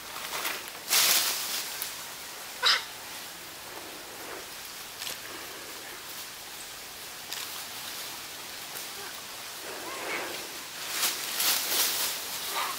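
Celebes crested macaques (Sulawesi black macaques) giving short calls at scattered moments, with several close together near the end.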